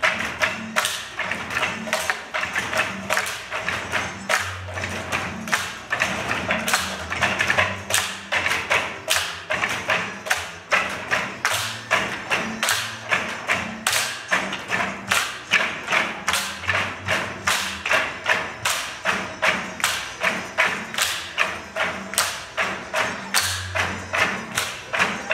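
Tinikling bamboo poles knocked on the stage floor and clapped together in a steady rhythm of sharp wooden knocks, over music.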